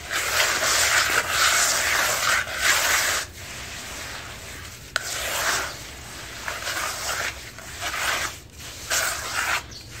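Hands squeezing, rubbing and crumbling damp red dirt in a bucket, a gritty crunching rustle. It is loudest for the first three seconds, then comes in shorter, uneven bursts.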